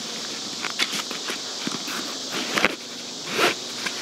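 Scattered knocks, clicks and rustles of gear being handled and stowed, the loudest a rustle about three and a half seconds in. A steady high buzz of insects carries on underneath.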